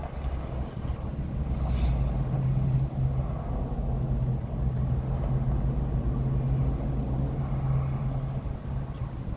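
Steady low mechanical hum with an underlying rumble, like a running engine or motor.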